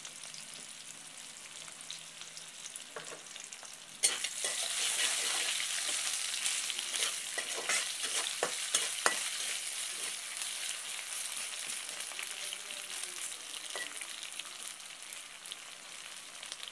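Sliced onions sizzling in hot oil in a steel pot. About four seconds in the sizzle suddenly gets louder as they are stirred, with scrapes and clinks of a metal spatula against the pot, then it settles back to a steadier sizzle.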